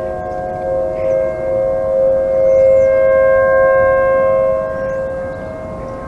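Several outdoor tornado warning sirens (a Federal 2T22B, a Federal 2001-SRN and ASC T-128s) sounding together at a distance, each holding a steady tone at its own pitch so that they blend into a sustained, eerie chord. The blend swells around the middle and eases a little near the end.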